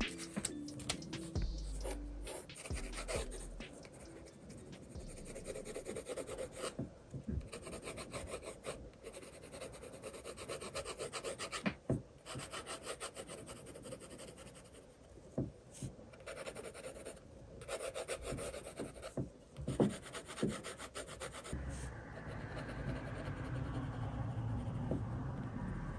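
Pencil scratching on sketchbook paper in quick, short shading strokes that come in irregular runs.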